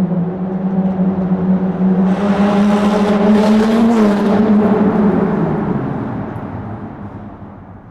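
Car engine in a tunnel growing louder to a peak near the middle, with a rush of tyre and air noise, then dropping slightly in pitch and fading away as the car passes.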